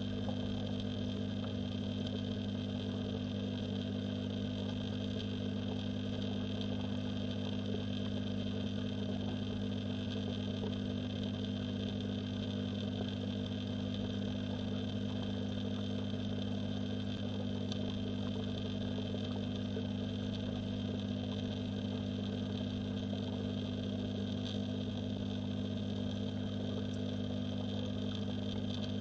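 Steady, unchanging electrical hum, heard underwater.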